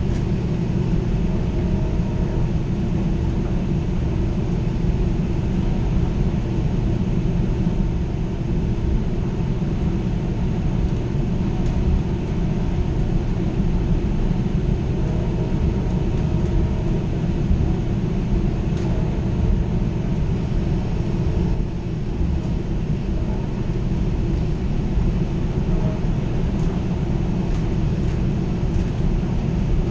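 Steady low rumble of a VRE commuter train rolling along the track, heard from on board.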